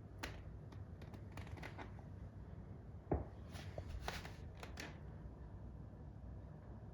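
A scatter of faint, irregular clicks and taps over a low steady hum, with one louder knock about three seconds in.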